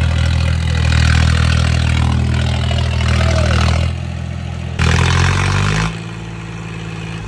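Tractor diesel engine running hard under load, then a loud rushing burst about five seconds in as the engine note falls away, after which the engine runs on more quietly at a lower speed.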